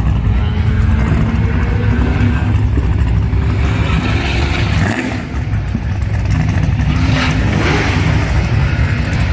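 Loud car engines and exhausts running and revving, with a brief dip in level about halfway through.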